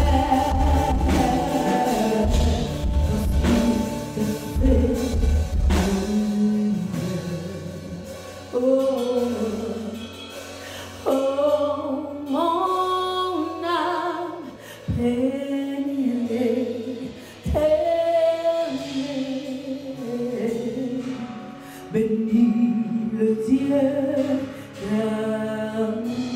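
A woman singing a slow gospel worship song at a microphone, holding long notes with vibrato over soft instrumental backing; the low accompaniment is heavier for the first few seconds.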